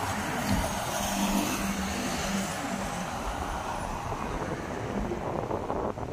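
Road traffic on a multi-lane city avenue: motorcycles and cars passing, with a steady engine note in the first couple of seconds over a continuous rush of tyre noise.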